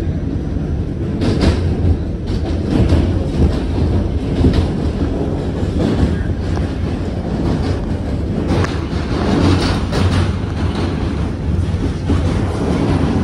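R46 subway train running at speed across the Manhattan Bridge's open steel structure. A loud, steady rumble of wheels on rail, broken by irregular sharp clacks over rail joints.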